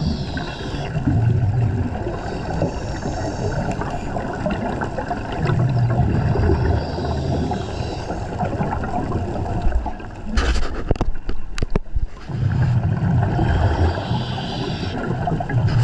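Underwater sound of a diver breathing from a regulator, with a gurgling rush of exhaled bubbles about every six seconds. A few sharp clicks come about ten to twelve seconds in.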